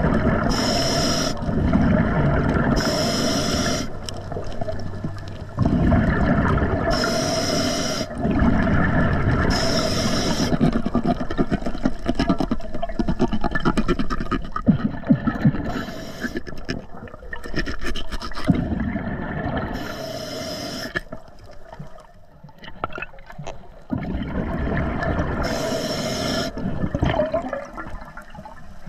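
Scuba diver breathing through an Atomic regulator underwater: short hissing inhalations every few seconds, each followed by a rumbling gush of exhaled bubbles.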